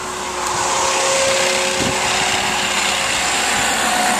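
VMAC VR70 underhood rotary screw air compressor running on the truck's engine, a steady mechanical whir that builds over about the first second and then holds even.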